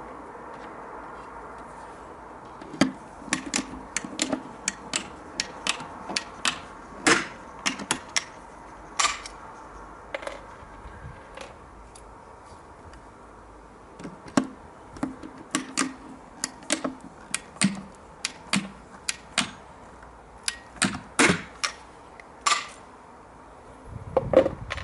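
Hand pop riveter pulling 4.8 mm rivets to fix a cockspur window handle's base to an aluminium window frame: a quick run of sharp clicks in two bursts with a short pause between.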